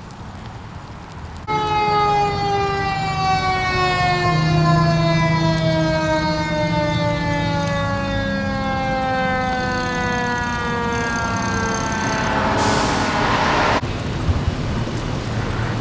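Fire engine siren starting loud about a second and a half in, one tone that slowly falls in pitch for about ten seconds, like a mechanical siren winding down as the engine pulls up. Near the end a loud hiss cuts off suddenly, leaving a low steady hum.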